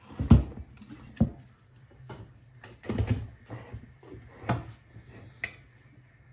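Knocks and clunks as a clay tajine in its metal-framed stand is lifted and set down on a gas hob; the loudest knock comes about a third of a second in, with further ones around one, three and four and a half seconds.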